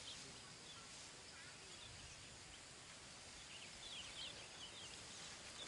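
Near-silent open-air ambience with a few faint, high, short bird chirps, most of them about four seconds in.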